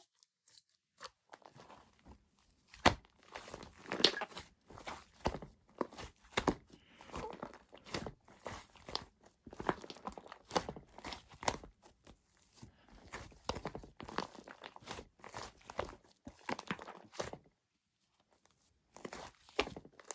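Blue shaving foam being crushed and pulled apart by hand: a run of irregular crunches and crackles, with a brief pause near the end.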